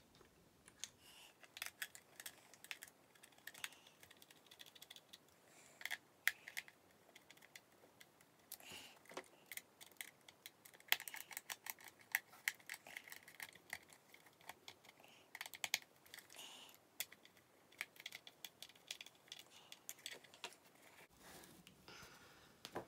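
Small screwdriver driving the body-shell screws into a Hornby Class 56 model locomotive: faint, irregular clicks and ticks of the blade in the screw heads and against the plastic, some in quick clusters. Near the end there is a soft rustle as the model is lifted from its foam cradle.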